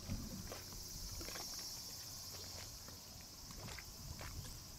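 A steady high-pitched chorus of insects buzzing, over a low uneven wind rumble on the microphone, with a few faint scattered clicks.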